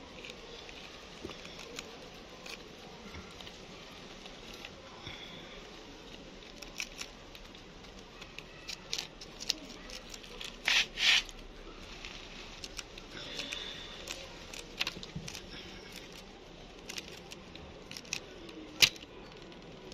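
Hamster scuffling with scattered clicks and crackles, and two short harsh screams close together about eleven seconds in.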